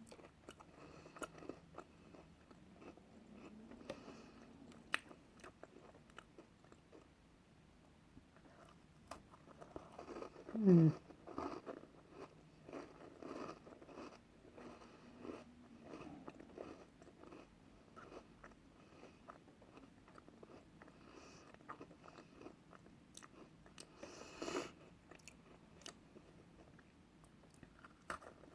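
A person chewing and biting snack food close to the microphone, with small irregular crunches and mouth clicks. About eleven seconds in comes a louder short sound that falls in pitch.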